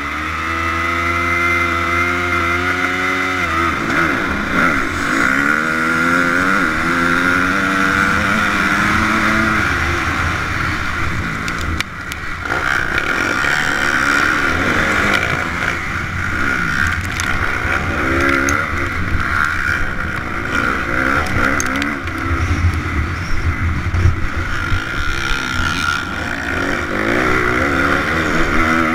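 Motocross bikes at a race start, heard from a helmet camera. For the first few seconds the engines are held at steady high revs. Then they accelerate away, the nearest bike's engine rising in pitch again and again through the gears, with other bikes running close by.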